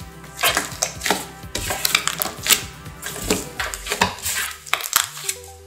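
Fluffy slime being squeezed and stretched by hand, giving many quick, irregular wet clicks and pops as air pockets burst.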